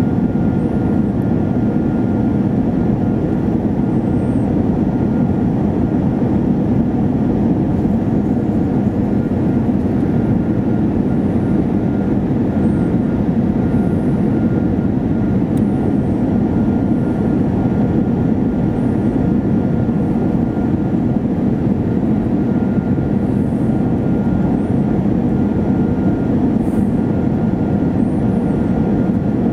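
Steady jet engine and airflow noise of an Airbus A321 heard inside the cabin on its approach, an even low rush with no change in level. A faint thin high tone comes and goes above it.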